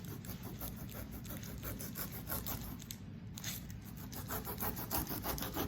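Kitchen knife sawing and scraping through the tough skin of a pineapple as it is peeled, in quick repeated rasping strokes, several a second.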